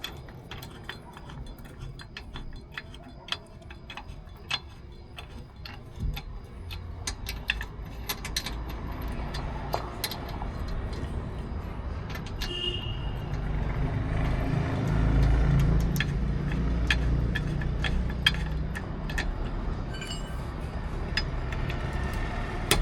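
Metallic clicks and clinks of a wheel wrench working the lug nuts as the spare wheel's nuts are tightened. Partway through, a low vehicle rumble swells up, loudest a little past the middle.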